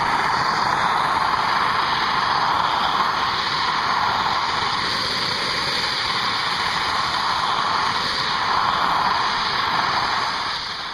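Handheld propane torch burning with a steady rushing hiss as its flame heats a thick steel circular saw blade to anneal it; the small torch is not putting in enough heat to bring the blade red hot. The hiss cuts off near the end.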